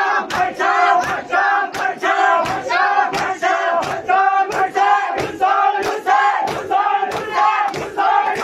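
A group of men doing standing matam: chanting together in unison while beating their chests in time, about two sharp slaps a second, each slap paired with a shouted syllable of the chant.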